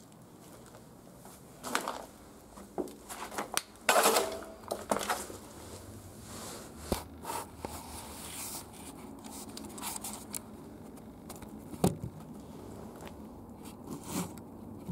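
Loose paper and debris rustling, crinkling and scraping in irregular bursts with a few sharp clicks, loudest about four seconds in.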